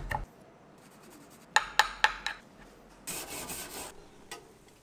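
A knife chops herbs on a wooden board right at the start. About two seconds in come four sharp clicks in quick succession, then a brief harsh scraping rasp, and one last click near the end.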